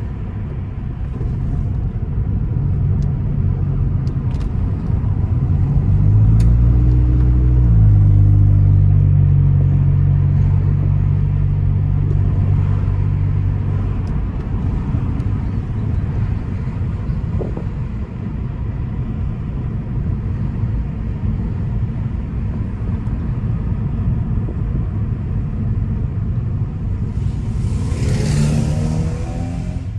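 Hyundai i30's engine and exhaust while driving: the note climbs and holds strong for several seconds, then settles to a lower steady drone. Near the end there is a quick rising rev together with a burst of hiss.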